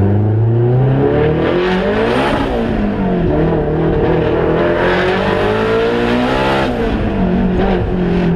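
Turbocharged Honda S2000 four-cylinder engine revving hard, its pitch climbing and falling several times. The owner reports that the car misfires at high rpm from bad spark.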